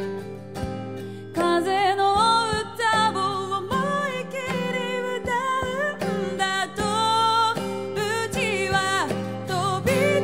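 A woman singing live to her own acoustic guitar. The guitar plays alone at first, and her voice comes in with the melody about a second and a half in.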